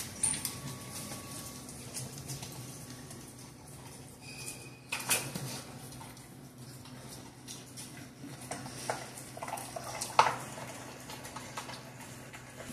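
A dog eating raw chicken from a stainless steel bowl: irregular chewing and licking with the metal bowl clinking and knocking on the tile floor, the loudest knocks about five and ten seconds in, over a low steady hum.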